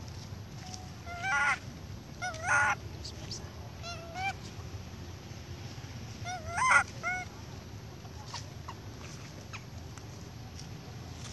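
Baby monkey crying in short, high, wavering calls, a handful of them spaced a second or two apart. The loudest comes about six and a half seconds in.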